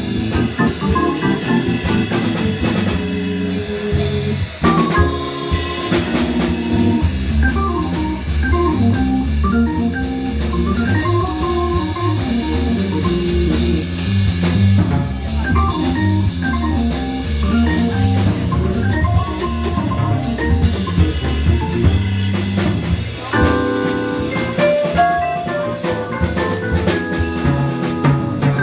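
Live jazz combo playing: an electronic keyboard with an organ sound, a drum kit and a vibraphone struck with mallets. About two-thirds of the way through a run of higher mallet notes comes to the front.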